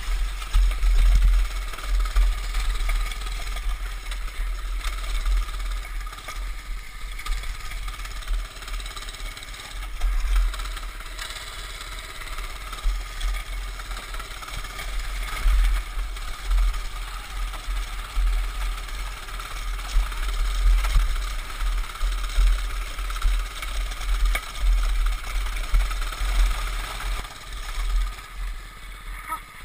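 Baja mini bike's small single-cylinder four-stroke engine running while riding, its level rising and falling with the throttle, under heavy wind rumble on the action-camera microphone.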